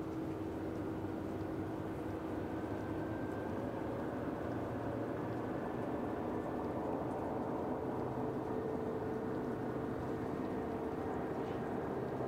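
Steady drone of a distant engine or machinery, with several hum tones that drift slowly in pitch.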